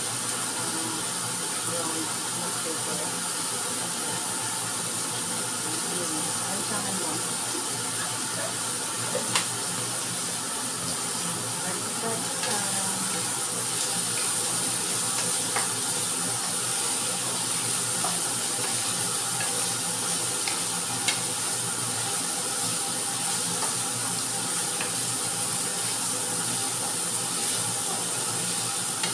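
Vegetables sizzling steadily in a hot frying pan as they are stir-fried with a wooden spatula, with a few sharp clicks of the spatula against the pan.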